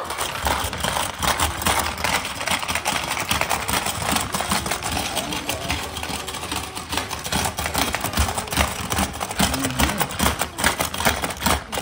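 Plastic hungry-frog marble game being played flat out: fast, continuous clicking of the frogs' levers being hammered, with small plastic balls clattering.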